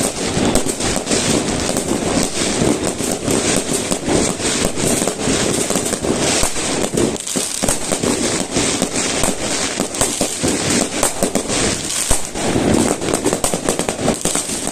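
A dense barrage of fireworks and firecrackers: many bangs and crackles one after another, without pause.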